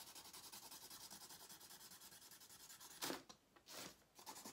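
Sharpie permanent marker scribbling back and forth on paper to colour in a shape, in quick, even strokes. About three seconds in come two longer, louder strokes.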